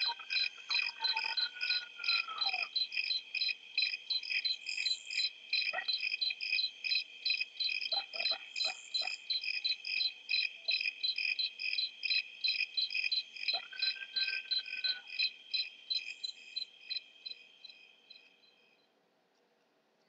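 Insect chirping in a steady, even rhythm of about three high chirps a second, fading out near the end. A faint falling whistle sounds twice underneath.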